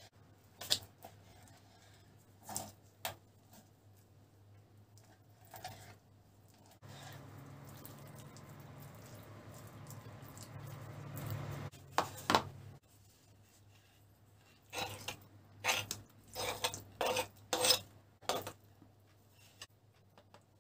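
Knife knocking on a cutting board as raw pork liver is cut into pieces, scattered single strikes, with a steady rushing noise for several seconds in the middle. Near the end, a quick run of clinks as a metal spoon works the liver in a plastic tub.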